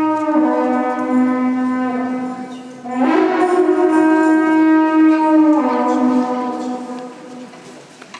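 Trombita, the long wooden horn of the Polish highlands, sounding long held notes with a few steps in pitch, taking a fresh breath about three seconds in and fading away near the end.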